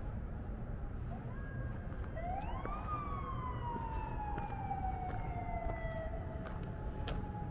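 Emergency vehicle siren: one wail that rises over about a second, then falls slowly for several seconds, over a steady low rumble.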